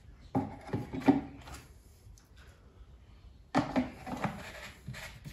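Plastic lawn mower top cover and fuel tank knocking and rubbing together as the tank is pushed into place in the cover, in two bursts of clatter: one about half a second in and one about three and a half seconds in.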